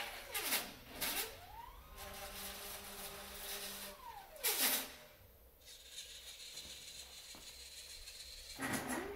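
Stepper motors of a homemade mushroom-inoculating robot whining as they drive its carriage back and forth, the pitch falling to a stop and rising again at each reversal, with a steady whine between moves.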